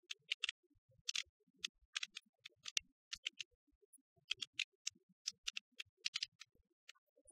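Quick, crisp ticking clicks in irregular clusters of two or three, high and thin, over a faint low rustle.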